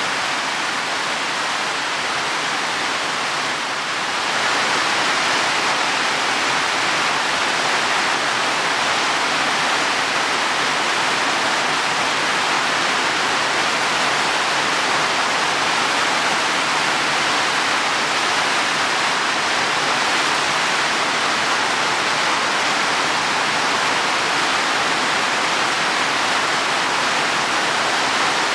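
Heavy rain falling on leaves and soil, a dense steady hiss that grows a little louder about four seconds in.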